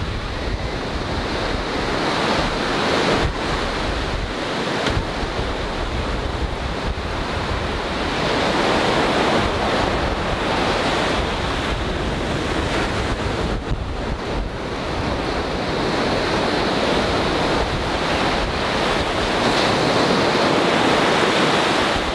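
Small surf breaking and washing up onto a sandy beach, the wash swelling and easing every several seconds, with wind rumbling on the microphone.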